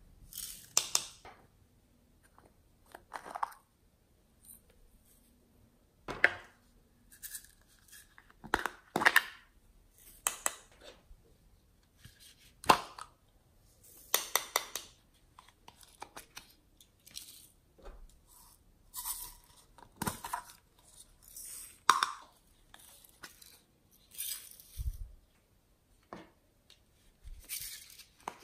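Glitter and sequins being tipped and shaken out of small plastic pots onto slime in a glass tray: a string of short crackly rustles and taps with brief quiet gaps between them.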